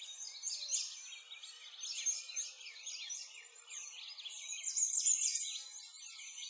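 A chorus of small birds chirping, many quick high calls overlapping without a break.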